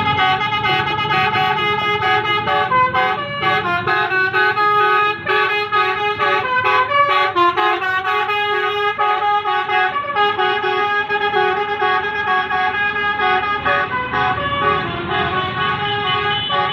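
Bus's 'basuri' musical air horn playing a tune: a run of loud, steady, chord-like horn notes changing pitch without a break.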